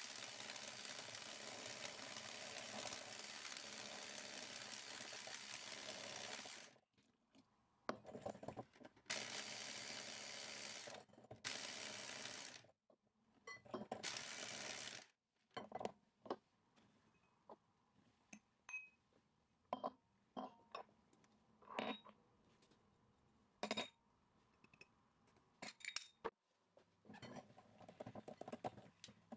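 Electric hand mixer beating eggs and sugar in a glass bowl: it runs steadily for the first several seconds, then twice more briefly. In between come scattered clinks of glassware and utensils against the bowl, and the mixer starts again near the end as cocoa is beaten into the batter.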